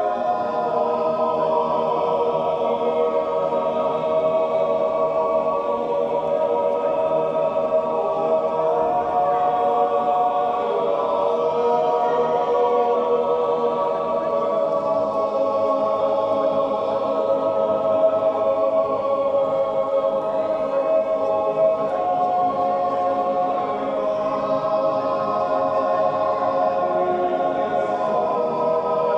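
Male yodel choir singing a Zäuerli, the wordless natural yodel of Appenzell, a cappella in long, slowly changing held chords.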